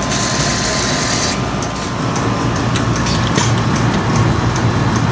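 ICEE frozen slush machine dispensing: a hiss as red slush pours from the tap for about the first second and a half, over a steady low machine hum. Then light plastic clicks as a dome lid is pushed onto the cup.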